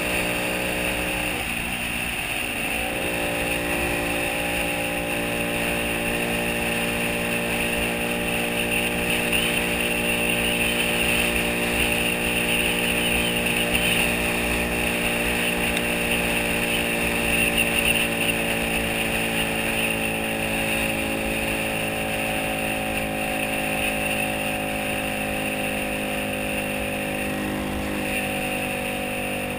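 Motorcycle engine running at a steady cruising speed, with wind noise over it. The engine note wavers briefly about two seconds in, then holds even and eases slowly lower over the last several seconds.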